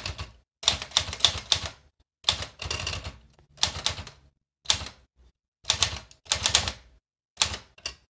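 Underwood 315 manual typewriter being typed on: sharp key clacks come in about seven quick runs of several strokes each, with short pauses between runs.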